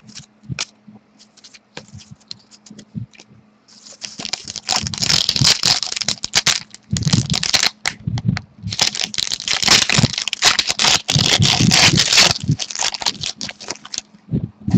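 Trading card pack wrapper being torn open and crinkled in the hands, loud and crackly, beginning about four seconds in after a few faint clicks and pausing briefly midway.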